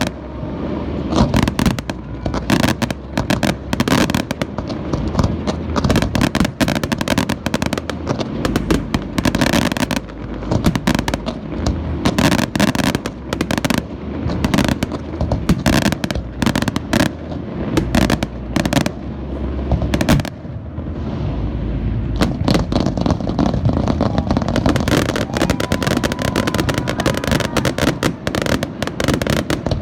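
Aerial fireworks display: a dense, continuous barrage of shell bursts, booms and crackling, with a steady low rumble under the bangs and a short lull about two-thirds of the way through.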